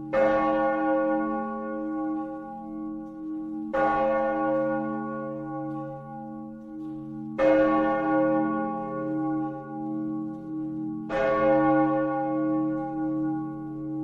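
Large church tower bell tolling: four strokes evenly spaced about every three and a half seconds, each hum ringing on under the next.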